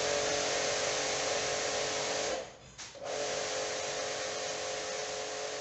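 StarQ ST W4 Pro electric pressure washer running with a steady hiss and motor whine. It is switched off with its knob a little over two seconds in and back on under a second later.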